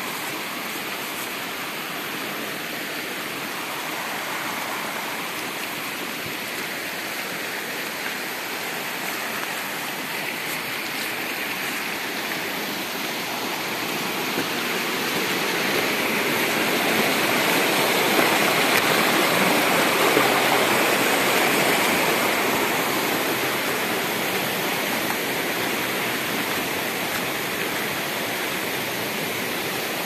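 Shallow rocky forest stream rushing and splashing over stones, a steady water noise that swells louder for several seconds around the middle and then eases off again.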